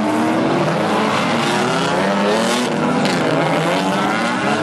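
Drift cars' engines revving, several engine notes rising and falling over one another, over a loud hiss of tyre squeal.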